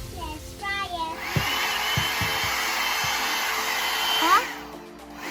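One-step hair dryer brush blowing with a steady hiss, starting about a second in and fading out shortly before the end, with a few soft knocks.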